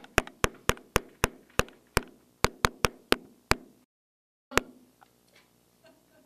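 Knuckles rapping on a handheld microphone to stand for knocking on a car window: about a dozen sharp knocks, roughly three a second. After a short break there is a single knock.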